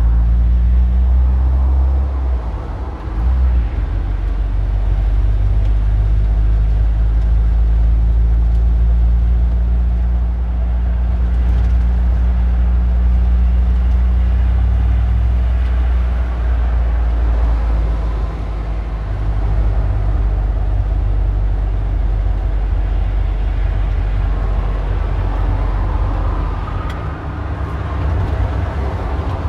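Car engine running steadily, a low rumble that shifts slightly in pitch a few times.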